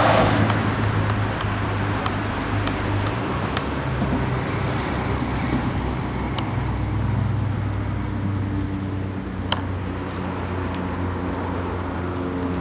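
Road traffic noise: a steady rumble of vehicle engines on the road, with a few sharp clicks now and then.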